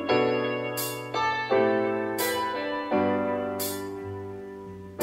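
Background piano music: chords struck about every three-quarters of a second and left to ring.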